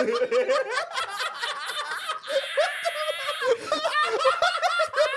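A group of people laughing hard together, a man's loud laughter among them.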